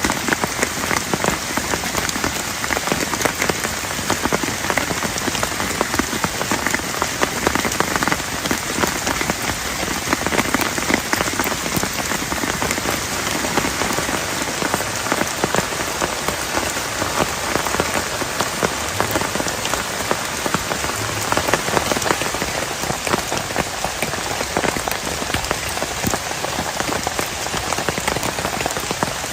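Heavy rain falling steadily, dense drops pattering on a plastic tarp.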